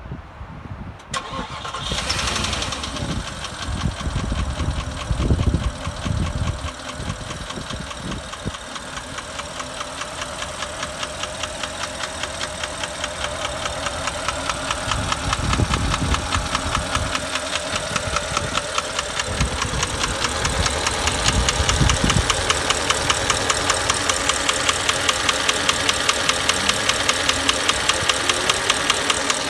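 2008 Porsche Cayenne Turbo's twin-turbo V8 starting about two seconds in, then idling with a regular, even knock that grows slowly louder. The knock comes from the driver's side of the engine, and the owner suspects chain slap from stretched timing chains or piston noise.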